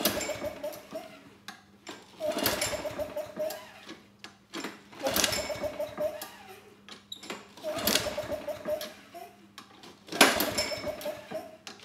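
A mower's Briggs & Stratton engine being pull-started on its recoil starter, five pulls about two and a half seconds apart. Each pull is a whirring rush of rope and engine turning over, and the engine never catches: it will not start.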